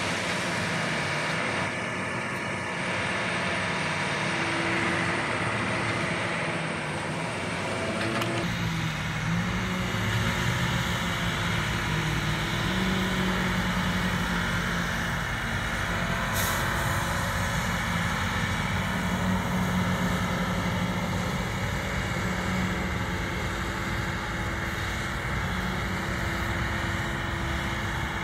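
John Deere self-propelled crop sprayer's diesel engine running steadily as the machine drives across the field with its booms out; the sound shifts abruptly about eight seconds in.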